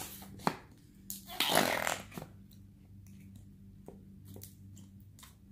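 Clear slime squelching and crackling as fingers press it down into its clear jar, with one louder wet squelch about one and a half seconds in and a few small clicks around it.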